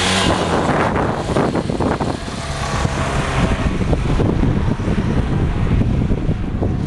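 Škoda 1203 van's engine heard as the van passes and drives away, its sound fading off, with wind buffeting the microphone.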